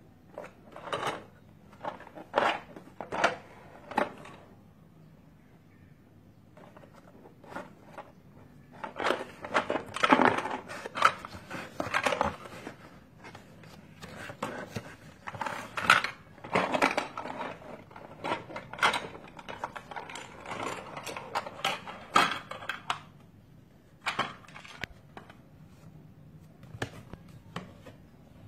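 Cardboard box of an Emco Blox toy dump-truck set being opened by hand and its hard plastic building-block parts pulled out and handled: irregular scrapes, rustles and plastic clatters. There are a few sharp knocks about one to four seconds in, then a long stretch of dense handling noise through the middle.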